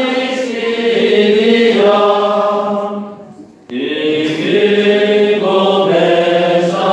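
Slow sung chant in long held notes. It fades out about three seconds in and resumes abruptly.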